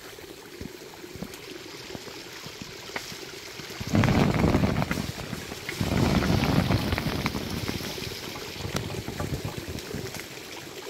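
Mulberries dropping onto a stretched fabric tarp as the tree is shaken, with many small taps in two loud bursts, about four and six seconds in. Underneath, a small stream trickles steadily.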